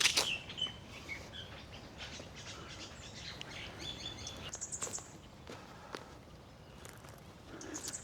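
Birds chirping and calling in woodland, with a rapid high trill a little past halfway through, over a low background hiss and a few faint clicks.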